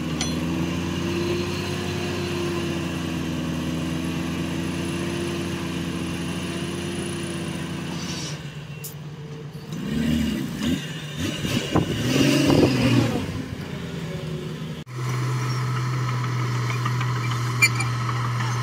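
Heavy diesel machinery engines running. A steady engine note gives way to a few seconds of revs rising and falling, then about fifteen seconds in the sound switches abruptly to another steady engine hum.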